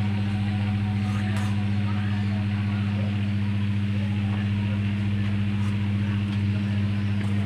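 A steady, unchanging low electrical hum with a buzzing overtone.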